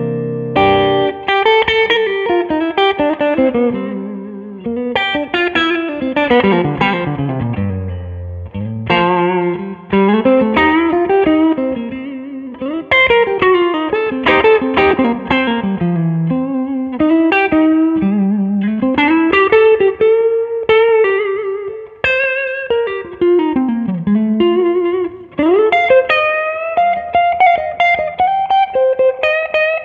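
Solo electric blues guitar improvisation: a Strat-style SVL guitar played through a Two-Rock Classic Reverb Signature tube amp, single-note lines with quick descending runs and bent notes.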